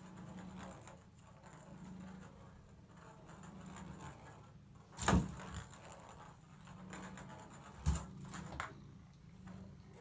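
A cat batting a ping pong ball around a bathtub: two sharp knocks against the tub about five and eight seconds in, with a few lighter clicks after the second, over a low steady rumble.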